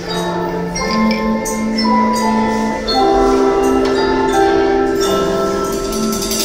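A children's marimba ensemble playing a tune of held, rolled notes, with a drum kit accompanying.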